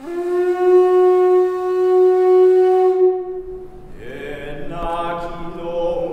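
A single long, steady note blown on a horn-like wind instrument, lasting about three and a half seconds. About four seconds in, chanting voices begin.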